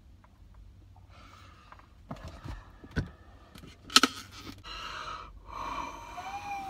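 A man's heavy, drawn-out breaths and sighs as he buries his face in his hands, ending in a short, wavering moan. A sharp knock about four seconds in is the loudest sound.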